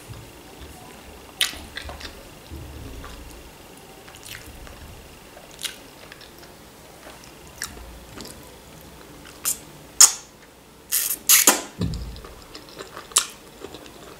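Close-miked eating sounds: chewing and wet mouth smacks, then a few loud slurps about ten to twelve seconds in as slippery starch-noodle strands from an ashlyanfo salad are sucked in.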